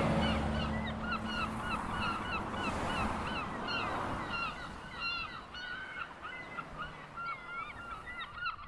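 A flock of birds calling: short calls repeated about three times a second over a soft steady hiss, all fading gradually.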